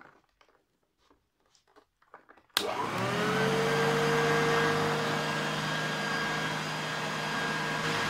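1980 Hoover Junior U2128 upright vacuum cleaner switched on by foot: faint rustling, then a sharp click about two and a half seconds in as the motor starts, spinning up with a rising whine for about a second and then running steadily.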